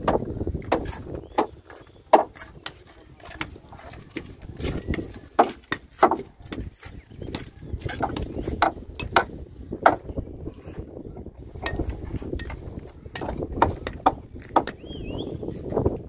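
Hand work on timber planks and concrete blocks: a string of sharp, irregular knocks and taps, with wind rumbling on the microphone.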